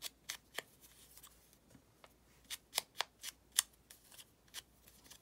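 Ink blending tool dabbing and brushing along the edges of a small paper scrap to distress it: a run of irregular soft taps and scuffs, busiest in the middle.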